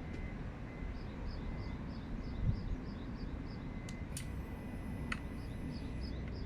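Outdoor background rumble with a small creature chirping steadily, about three short high chirps a second. About four seconds in comes a click, then a faint steady high electronic tone lasting about two seconds, with another click a second after the first.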